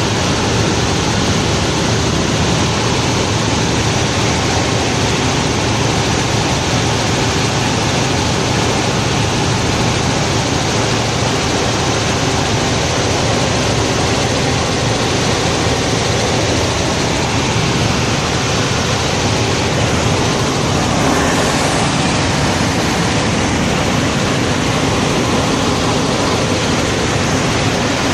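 Helicopter engine and rotor running steadily, heard from inside the cabin as a constant loud wash of noise with a faint steady hum in it.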